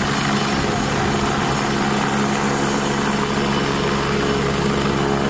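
Helicopter flying close by, its turbine engine and rotor running steadily and loudly, with a thin high whine over the low rotor tones.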